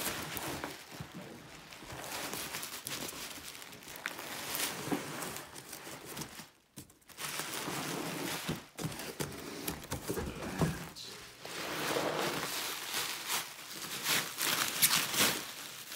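Bubble wrap crinkling and cardboard scraping as a bubble-wrapped guitar case is slid out of a cardboard shipping box and handled, in irregular rustling bursts with a brief pause about halfway through.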